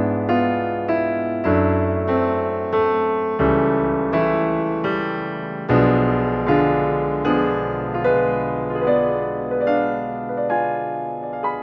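Background piano music: a slow, gentle melody of struck notes, each fading before the next.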